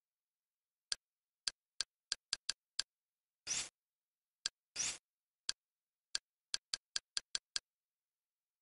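Kodi interface sound effects from the Confluence skin: quick ticks as the menu cursor steps from item to item, in runs of several a second. Twice, about halfway through, a slightly longer swish plays as a settings window opens.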